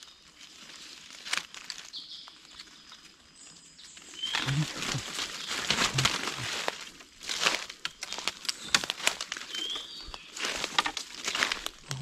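Hurried footsteps crunching through dry leaf litter and brushing past undergrowth, quiet at first and much louder and denser from about four seconds in.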